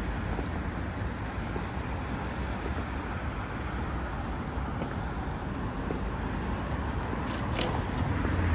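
Steady city road traffic: cars passing on a busy street. A few faint ticks come about seven and a half seconds in, and a low engine hum rises near the end as a vehicle comes closer.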